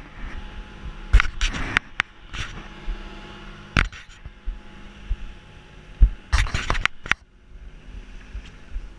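Handling noise from an action camera being gripped and moved: a run of sharp knocks, clicks and scrapes on its body, in clusters about a second in, near the middle and toward the end, over a faint steady low hum.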